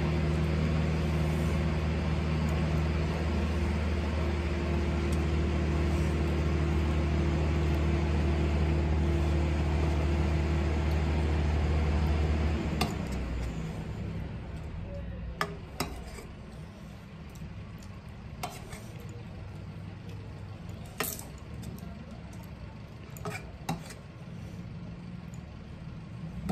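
A steady low machine hum cuts off suddenly about halfway through. After that, in the quieter stretch, a few sharp clinks of a steel serving spoon against the steel curry bowl and plates.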